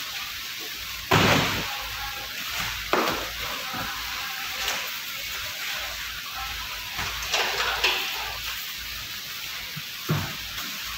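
Large white plastic drums being handled and stacked on wooden pallets: several knocks and scrapes at irregular moments over a steady hiss.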